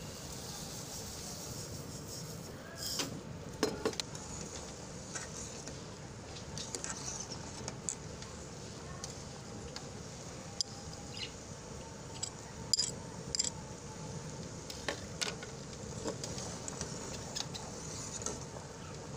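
Falsa berries simmering in sugar syrup in an aluminium saucepan, bubbling steadily. Sugar is poured in near the start, then a steel ladle stirs the pot, clinking now and then against the pan's sides.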